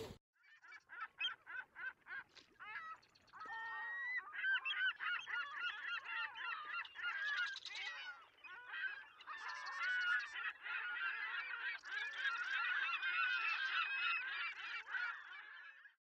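A flock of birds calling: short separate calls at first, thickening after about three and a half seconds into a dense, overlapping chatter of many calls.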